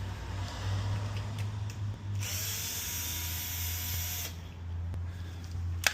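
A power tool motor runs with a steady hum, turning harsher and louder for about two seconds in the middle, then stops with a sharp click near the end.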